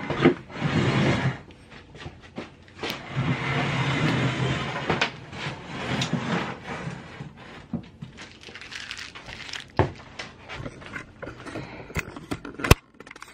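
Metal-framed glass-top desk being shifted across a hardwood floor: two longer stretches of scraping and rumbling with scattered knocks, then a sharp click near the end.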